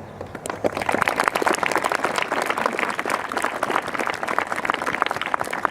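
Audience applauding, a crowd of many hands clapping, starting a moment in and holding steady.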